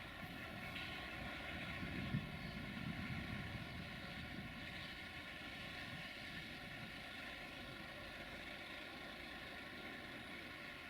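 Diesel locomotive engine running steadily at some distance, a low rumble with a constant hum, slowly fading. There is a single short click about two seconds in.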